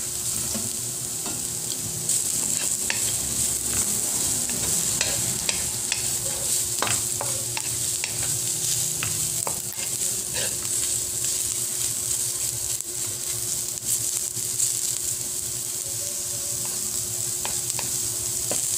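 Sliced carrot, onion and garlic sizzling in a little cooking oil in a pan, with a steady high hiss. The vegetables are stirred, with scattered clicks of the utensil against the pan.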